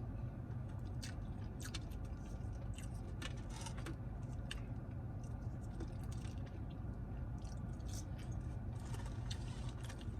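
A person chewing and biting into a bacon cheeseburger: irregular wet smacking clicks and soft crunches close to the microphone, over a steady low hum.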